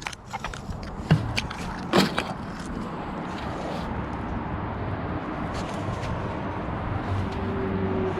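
A few sharp clicks and knocks from handling the plastic trim of a car's steering column in the first two seconds, then a steady low background hum.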